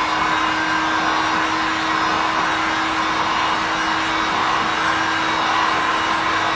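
Handheld electric heat gun running steadily, an even rush of blown air with a steady hum, as it dries freshly brushed touch-up primer.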